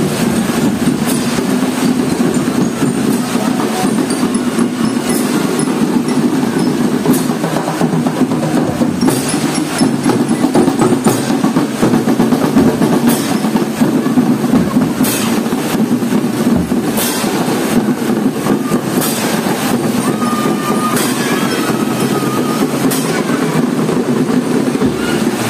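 Marching drum band playing in heavy rain: marching drums beating a dense, steady march with a cymbal crash about every two seconds, over the rain.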